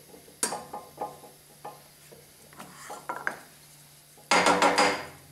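A wooden workpiece being handled and unclamped at a hollow chisel morticer's table: a few light knocks of wood and metal, then a loud clatter of several quick knocks near the end. A low steady hum runs underneath.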